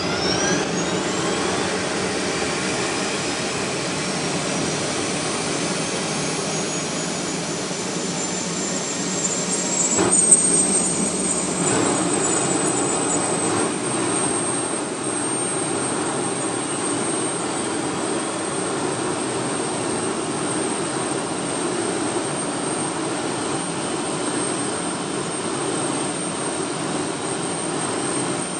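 Fighter jet engine spooling up after start: a whine rising steeply in pitch over the first seconds and settling into a steady high whine over a constant roar, with a sharp click about ten seconds in.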